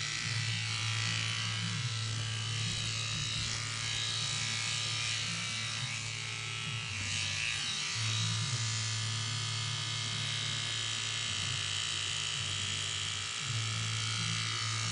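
Red corded electric hair clippers buzzing steadily as they shave a head close to the scalp, the hum dropping slightly lower twice for a second or two.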